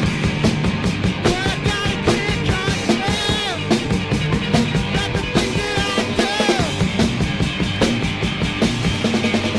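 Rock song played by a band: drum kit keeping a steady beat under a singing voice.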